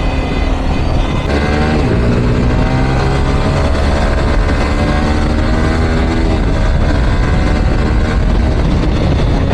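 Yamaha R15M's single-cylinder engine pulling under throttle while riding. Its pitch climbs steadily for about five seconds, then drops away about six seconds in, over a heavy low rumble of wind on the microphone.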